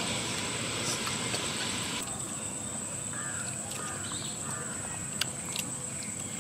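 Outdoor rural ambience: a steady high-pitched insect drone over a low background hiss, with a few short bird chirps about three to four seconds in and scattered faint clicks.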